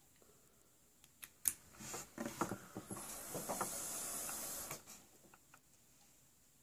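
A few sharp metal clicks as the atomizer is handled. Then, from about two seconds in, crackling and a steady hiss for about two and a half seconds: the dual 28-gauge kanthal nano coils (0.47 ohm) of a Nimbus rebuildable atomizer sizzle as they fire on a mechanical mod while vapour is drawn through it. The sound stops sharply near the end.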